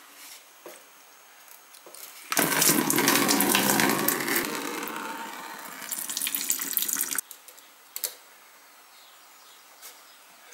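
Engine coolant pouring from a disconnected radiator hose of a KTM Duke 790 into a bucket. The stream starts about two seconds in, strongest at first, eases off and stops abruptly a few seconds later.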